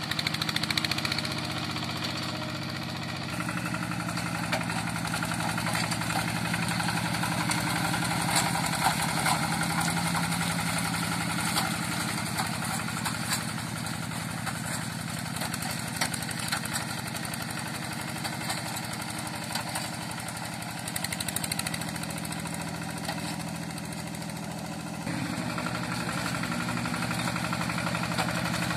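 Yanmar Bromo Pro hand tractor's diesel engine running steadily, its note changing abruptly about three seconds in and again near the end.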